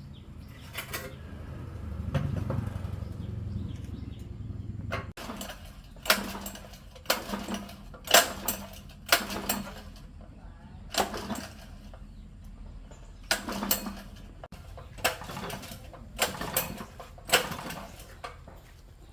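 A series of sharp knocks, roughly one a second, about a dozen in all, after a few seconds of low rumbling handling noise.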